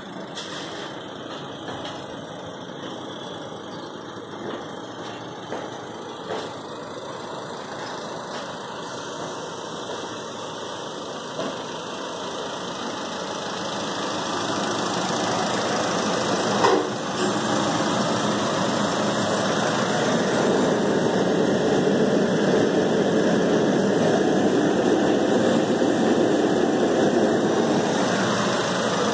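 Honda Brio's engine running during an HHO carbon-cleaning treatment. It grows steadily louder over several seconds about halfway through and then holds there, with a single sharp knock a little past the middle.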